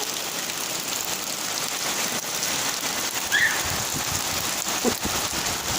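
Steady rain falling and splashing on surfaces, with a brief high call about three and a half seconds in.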